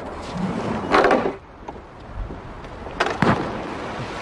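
Sudden heavy knocks and thuds from wooden trebuchets being worked: a short rush of noise about a second in, then a sharp double knock about three seconds in.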